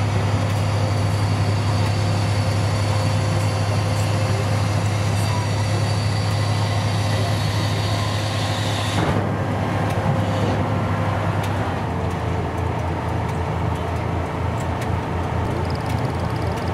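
Tracked scissors-bridge layer's engine running steadily while its hydraulics fold the bridge down onto the hull. A high hiss stops abruptly with a knock about nine seconds in, after which the engine note pulses unevenly.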